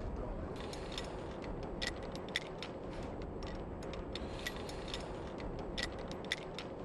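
Steel lifting chain and its shortener clicking and clinking lightly now and then, with irregular single clicks, as gloved hands work the chain links, over a steady low background noise.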